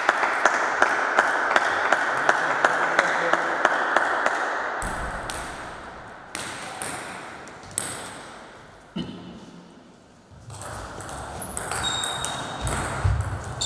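Table tennis ball clicking off bats and table: a quick run of evenly spaced hits that fades out in the first few seconds, a lull with a few single clicks, then hits of a new rally near the end.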